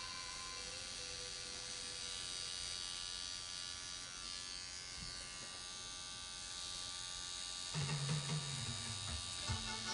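Rotary pen tattoo machine with a 9 round liner needle buzzing steadily as it lines the design into skin. About three quarters of the way through, louder low-pitched music comes in over the buzz.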